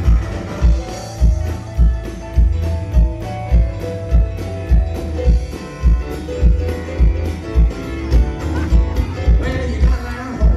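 A live country band plays an instrumental break with no singing. Electric guitar lines run over bass and a steady kick-drum beat of about two beats a second.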